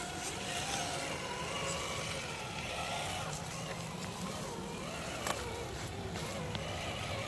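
A Traxxas TRX-4 Bronco RC crawler's electric motor and geared drivetrain whining, the pitch rising and falling with the throttle as it crawls over rock. There is one sharp click about five seconds in.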